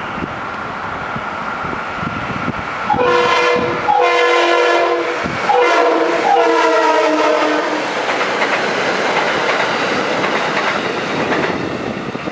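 Metro-North electric multiple-unit commuter train passing, its wheels rumbling and clacking on the rails. Its multi-tone horn sounds three times between about three and eight seconds in, the last blast the longest.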